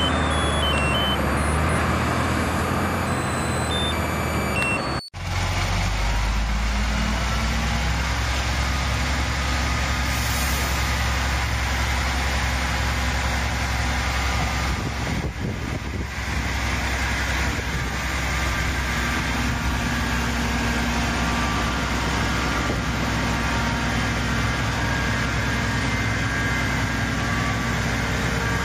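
Steady diesel-truck engine sound from an RC MAN TGS dump truck model, a low even rumble that drops out briefly about five seconds in.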